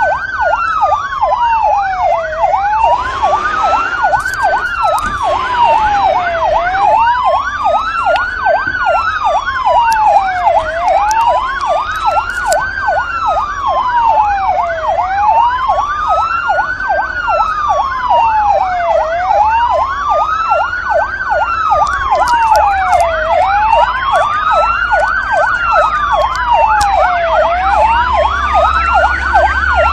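Emergency-vehicle siren sounding steadily: a slow wail rising and falling about every four seconds, with a fast warbling sweep over it. A low rumble comes in near the end.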